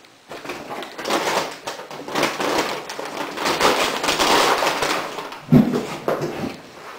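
Brown paper bag crinkling and rustling as a tall beer can is pushed into it and handled, with a sharp thump about five and a half seconds in.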